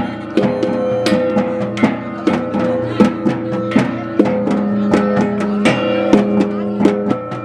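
Hand-held bossed gongs beaten in a quick, uneven rhythm, about two strikes a second, their ringing tones held between the strikes.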